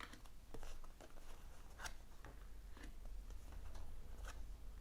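Tarot cards being handled and drawn: faint, irregular flicks and soft taps of card on card, over a low steady hum.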